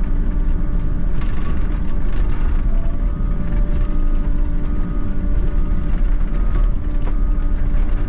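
Volvo excavator's diesel engine running under load with a steady hum from the hydraulics and faint clicks and knocks, heard from inside the cab as the machine swings.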